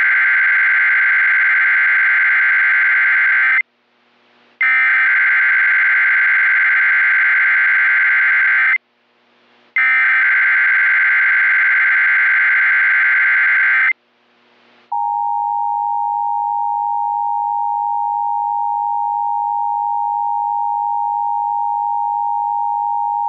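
Emergency Alert System tones: three long SAME header data bursts of about four seconds each, separated by short pauses and lengthened by the 31 location codes, then the steady two-tone attention signal starting about fifteen seconds in.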